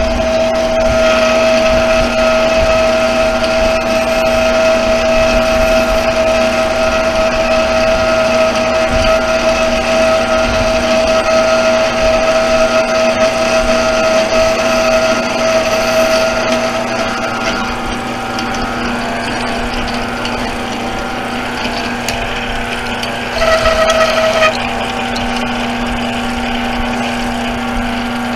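Small metal bench lathe running steadily with a whining gear train while turning a brake rotor hub. A higher whine drops out about two-thirds of the way through, and near the end a brief, louder whine lasts about a second.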